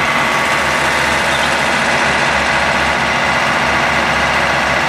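Diesel engine of a standing passenger train idling steadily, a deep even hum.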